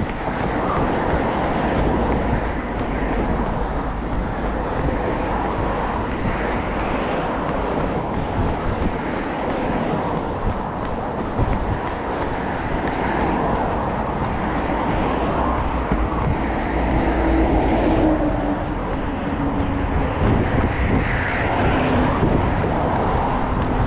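Steady vehicle and road noise, continuous and without pauses, with a faint low engine-like hum in the second half.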